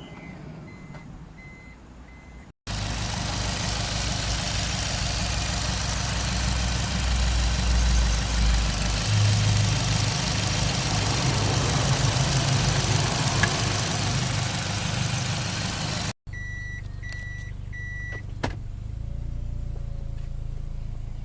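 Toyota Noah's 2.0-litre four-cylinder petrol engine running, loud and close, its low tone stepping up in pitch a little past the middle as the engine speed rises. After a sudden cut, the running sound is much quieter, with three short high beeps like a car's warning chime and then a single click.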